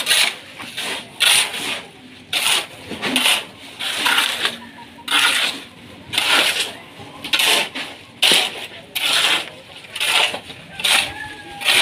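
Shovel scraping and scooping wet concrete mix off a hard surface, a rough scrape repeated about once or twice a second.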